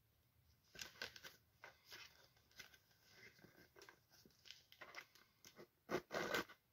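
Cardboard parcel sealed with packing tape being handled and picked open: quiet scattered rustles and scrapes, with a louder double burst of tearing about six seconds in.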